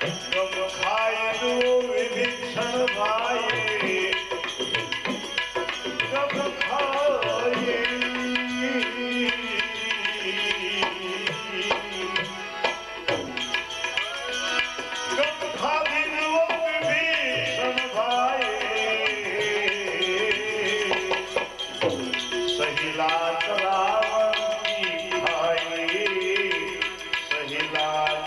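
Devotional bhajan music: tabla playing a steady beat under a wavering melody line, an instrumental passage with no singing.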